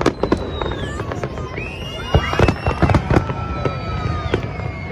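Aerial fireworks display: a rapid run of bangs and crackling shell bursts, with several long high whistles sliding in pitch over them from about a second and a half in.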